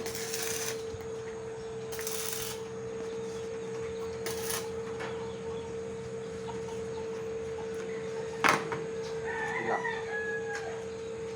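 A rooster crowing once, a wavering call about a second long near the end, over a steady hum. Earlier there are three short hissing bursts, and a sharp knock comes just before the crow.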